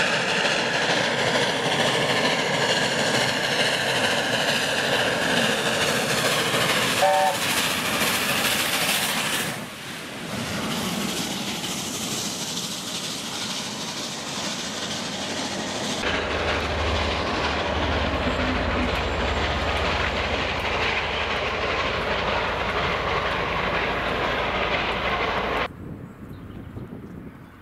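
LNER A4 Pacific steam locomotive 'Union of South Africa' running past close by with its passenger coaches, wheels on rail and train noise loud, with a short three-note chime whistle about seven seconds in. Near the end the sound drops suddenly and becomes fainter.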